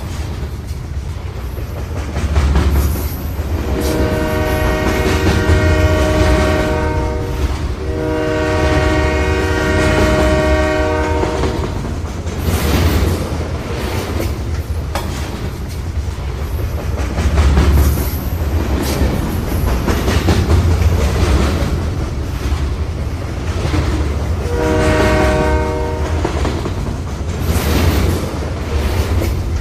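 A train horn sounds three times, two long blasts of about three seconds each and then a shorter one near the end, over a steady low rumble of a running train.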